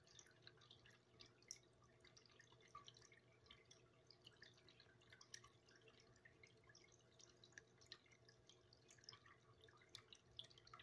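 Near silence: faint, irregular soft ticks scattered throughout over a low steady hum.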